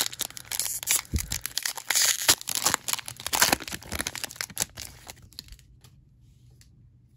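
Foil wrapper of a football trading-card pack being torn open and crinkled in the hands: a dense crackling that dies down about five seconds in.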